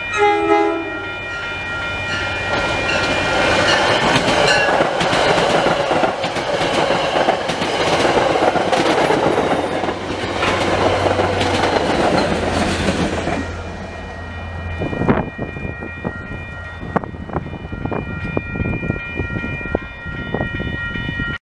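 Grade-crossing warning bells ringing steadily as an MBTA commuter rail train passes. The end of a horn blast sounds in the first second. Then comes about eleven seconds of rumble and wheel clatter from the coaches and diesel locomotive going by. After that the train noise drops away to scattered clicks while the bells keep ringing.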